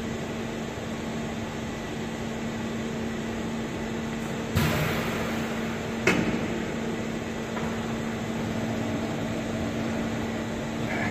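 Steady hum of plant machinery and ventilation with a faint steady tone, broken by a thump about four and a half seconds in and a sharp knock about a second and a half later.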